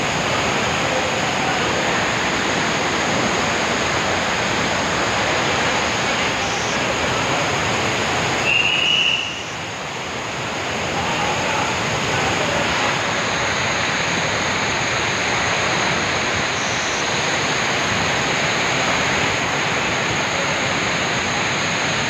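Floodwater rushing in a fast, muddy torrent with water cascading down, a steady unbroken rush of water. About nine seconds in there is a brief high squeal and a short dip in level.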